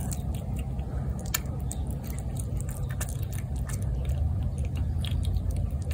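A tabby cat eating wet food from a plate, with many small wet chewing and smacking clicks over a steady low rumble.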